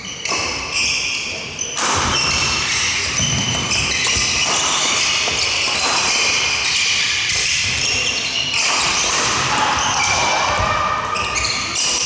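Badminton doubles rally: sneakers squeaking over and over on the wooden court, with racket hits on the shuttlecock, the sharpest about two seconds in. The sound echoes in a large hall.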